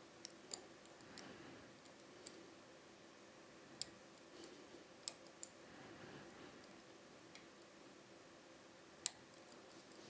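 Small sharp metallic clicks from a hook pick working the pin tumblers of a Dom IX-6 KG euro cylinder held under tension, coming at irregular moments, with the loudest click near the end.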